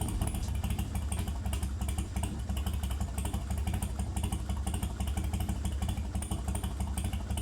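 Harley-Davidson V-twin motorcycle engine idling with a steady, fast, even pulse.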